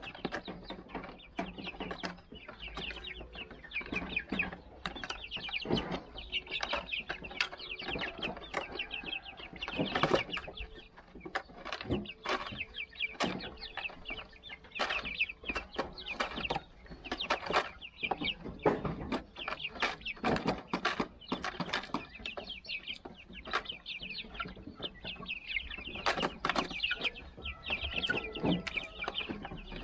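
A flock of 51-day-old Silver Laced Wyandotte chickens peeping and chirping without a break, with many sharp taps and clicks mixed in.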